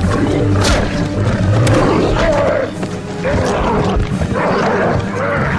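Film fight soundtrack: a music score under snarling and roaring from a mutant dog and the Hulk, with several sharp hits.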